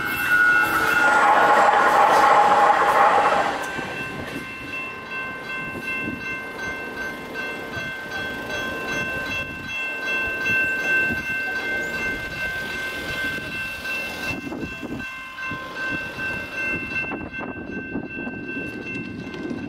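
Railroad crossing's GS Type 2 electronic bell ringing steadily. Over it, a Siemens S700 light rail train's passing noise is loud for the first three or four seconds, then fades away.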